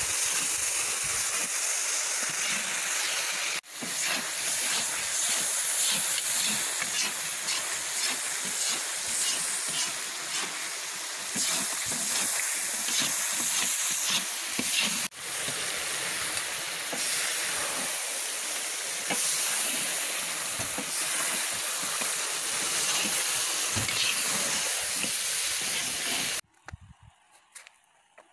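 Beef and carrot strips sizzling hard in hot oil in a kazan over a fire, with a metal ladle scraping as they are stirred: the carrots frying into the zirvak for plov. The sizzle breaks off briefly twice and stops abruptly near the end.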